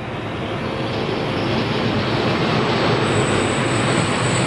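DB class 294 diesel-hydraulic shunting locomotive hauling a freight train past at close range, its engine and rolling wheels growing steadily louder as it passes. A thin high squeal from the wheels on the rails sets in about three seconds in.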